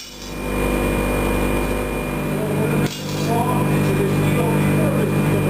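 Steady low mechanical hum with faint voices underneath. It dips briefly at the start and breaks off abruptly about three seconds in before carrying on.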